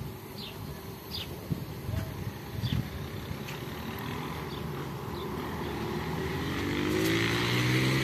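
A motor vehicle's engine, rising steadily in pitch and growing louder over the last three seconds as it accelerates or comes closer. Earlier there are faint, short high chirps.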